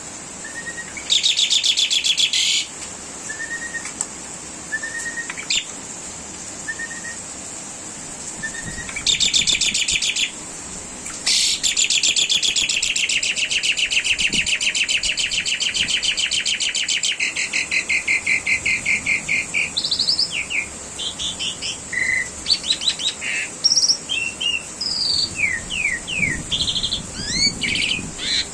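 Asian pied starling (jalak suren) singing: loud rapid rattling trills about a second in and again around nine seconds, then a long trill of about six seconds, followed by a varied run of short whistles and chirps. Short soft single notes come between the early trills.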